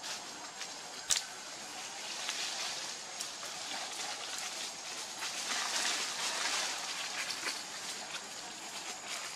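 Outdoor ambience of light rustling and crackling, with a sharp click about a second in over a steady faint hiss.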